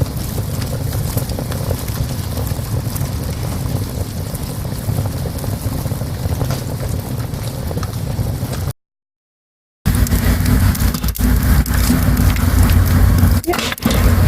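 Wood fire crackling in a small stove: a dense run of small pops and snaps over a low rumble. The sound cuts out completely for about a second just past the middle, then comes back louder.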